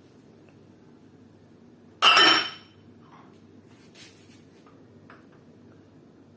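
Empty Nocilla glass drinking glasses clinking together once about two seconds in, a sharp glass-on-glass chink with a short bright ring. A couple of faint light taps follow.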